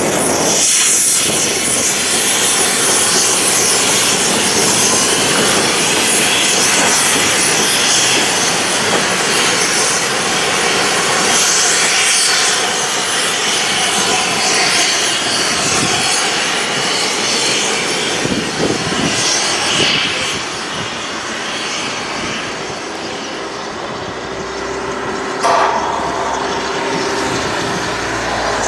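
Steam locomotive hauling a goods train away under load, its exhaust and escaping steam making a loud, dense rushing that eases after about twenty seconds. A single sharp knock comes near the end, with the low rumble of another train approaching.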